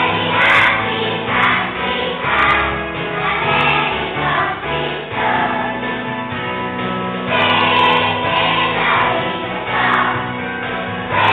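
A group of young children singing together in unison, with a musical accompaniment carrying steady low notes beneath their voices.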